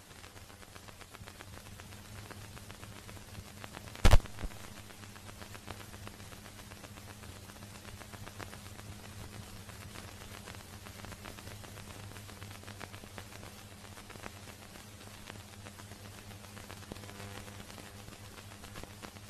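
Steady hiss and low hum of an old film soundtrack with scattered faint crackles, broken once about four seconds in by a single loud, sharp gunshot.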